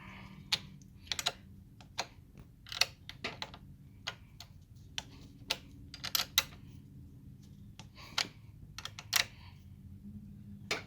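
Wrench tightening a car battery terminal clamp bolt: irregular sharp metal clicks and clinks, some in quick pairs, as the wrench is taken off and refitted on the nut turn by turn.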